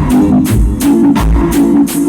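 Loud recorded music with a steady beat, deep bass and crisp hi-hats, played through a party sound system.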